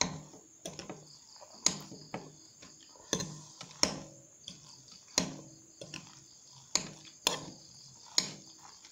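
Metal spoon clinking and scraping against a glass bowl while stirring noodles, with about eight sharp clinks at uneven spacing, each ringing briefly.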